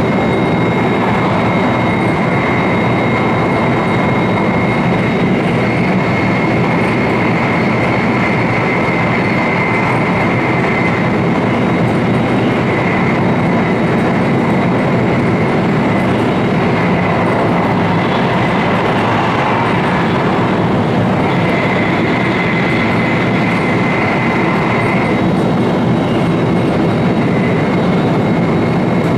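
Running noise of an E4 series Shinkansen at speed, heard from inside the vestibule deck: a steady, loud rumble and rush of wheels on rail and air past the car body. Over it runs a thin high whine that fades partway through and comes back later.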